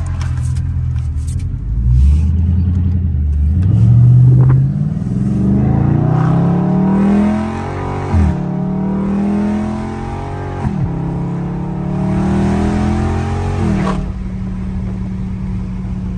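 Straight-piped, catless Dodge Charger Scat Pack 392 HEMI V8 accelerating hard: the exhaust note climbs in pitch through the revs, drops back abruptly on three upshifts and climbs again, then settles into a steady cruise near the end.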